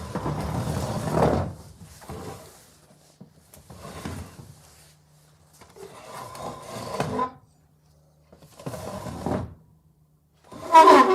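A wooden chair scraped and dragged across the floor in a series of about six short, separate pushes, some with a squeak in them; the loudest, squeakiest scrape comes near the end.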